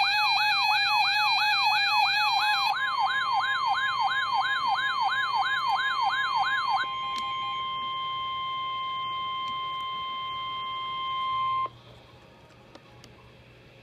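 Emergency Alert System alarm tones heralding a tornado warning: a siren-like tone wails rapidly up and down, about three sweeps a second, for about seven seconds. It gives way to a quieter steady single-pitched alert tone that cuts off suddenly after about five seconds, leaving faint hiss.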